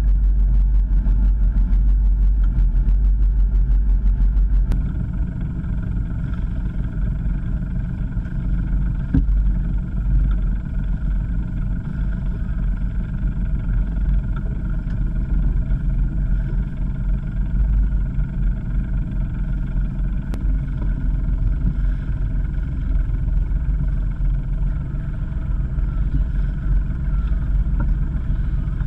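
A sailboat's inboard engine running steadily under way. It is louder and rumbling for the first five seconds, then drops suddenly to a quieter, even hum.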